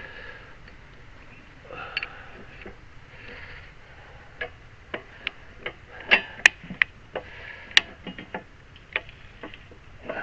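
Homemade bee hive lifter raising a 60-pound load, its mechanism giving sharp, irregular clicks, about one to two a second from about four seconds in, after a few softer scraping sounds.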